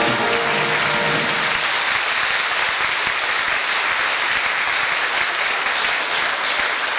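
Audience applauding steadily. The last held notes of the show's music fade out in the first second or two.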